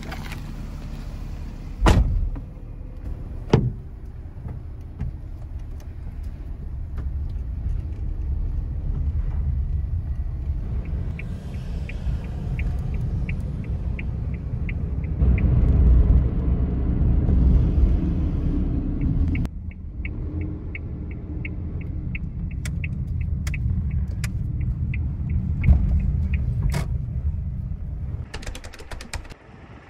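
Inside a Suzuki car's cabin: a door shuts with a knock about two seconds in, and another knock follows. Then comes the steady low rumble of the engine and tyres while driving. The turn-signal indicator ticks evenly twice for several seconds, and a quick run of clicks comes near the end.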